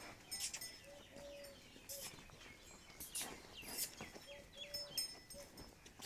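Birds calling around the farm: a low three-note call, short-long-short, comes twice, among many brief high chirps and a few falling whistles.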